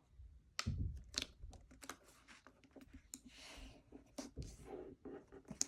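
Sheet of printer paper being folded by hand: short crinkles, rustles and soft taps as a corner is folded over and creased down.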